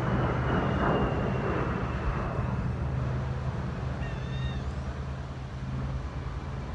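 Distant jet aircraft from an air show: a steady low rumble with a faint high whine that slowly falls in pitch. About four seconds in, a bird gives a short wavering call.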